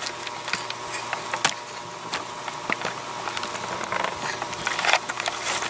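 Irregular light clicks and metallic taps of hand tools being worked on the engine.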